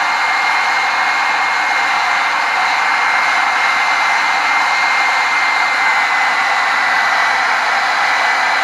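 Old hairdryer running steadily as a blower on a coal fire: a rush of air with a steady high motor whine.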